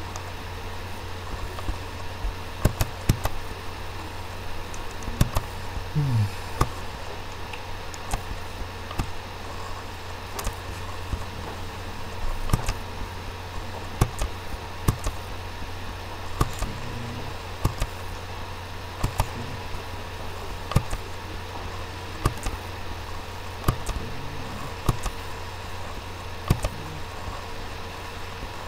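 Computer mouse clicks, short and sharp, coming irregularly about once or twice a second, over a steady low electrical hum.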